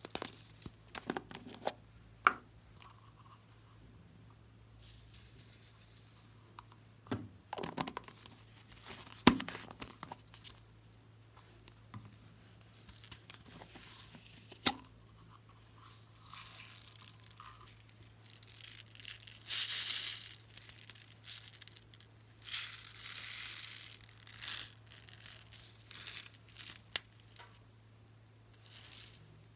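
Small plastic slime containers being handled and opened by hand. Sharp clicks and knocks of the plastic lids come in the first half, then several hissy rustling noises lasting a second or two each.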